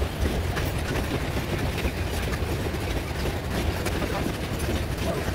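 Loaded grain wagons of a freight train (boxcars and hopper cars) rolling past on metre-gauge track: a steady rumble of steel wheels on the rails, with faint clicks and squeaks.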